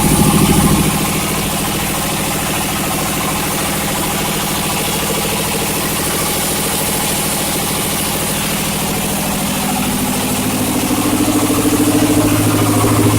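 Coconut husk decorticating machine running steadily with a motor hum. The hum eases a little about a second in and shifts to a deeper tone from about ten seconds in.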